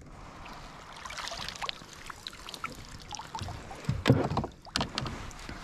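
Rustling and small clicks of handling aboard a fishing kayak, with two louder knocks about four and five seconds in.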